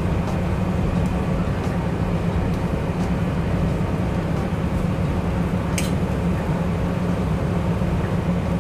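Steady low rumble of commercial kitchen equipment at a dosa griddle, with a single faint click about six seconds in.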